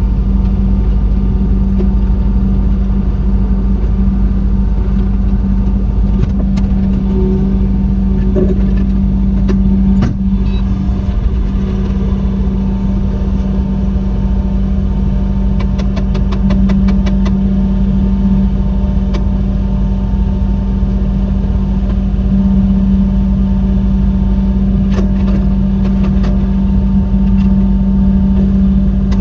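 Kubota SVL75-2 compact track loader's diesel engine running steadily under work, a loud constant drone. A few clicks sound over it, with a quick run of ticks about sixteen seconds in.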